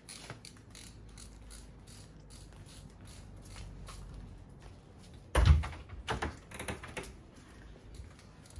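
Footsteps and small handling clicks of someone walking while carrying an airsoft rifle, with a loud thump about five and a half seconds in, followed by a few sharper clicks and knocks.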